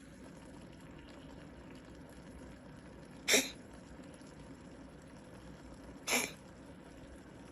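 Sphynx cat coughing: two short, sharp coughs about three seconds apart, the first one louder.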